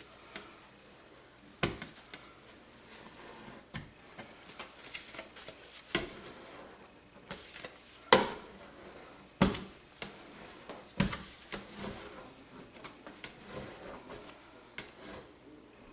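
Plastic hard card squeegeed across wet security window film on glass, pushing out water and air: a series of irregular short scrapes and knocks, the loudest about eight seconds in.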